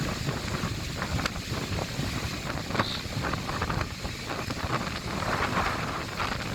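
Strong wind buffeting the microphone in a low, gusty rumble, with breaking waves washing underneath.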